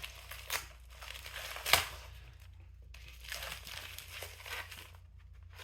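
A phone-case package being handled and opened by hand: irregular crinkling and tearing of packaging, with a sharp loud crackle just under two seconds in.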